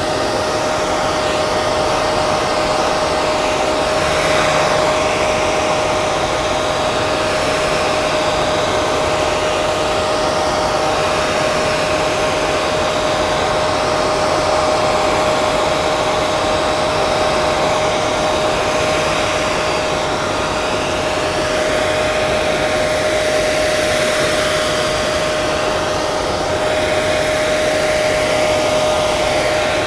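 Hair dryer running steadily, a rushing blow of air with a constant motor whine.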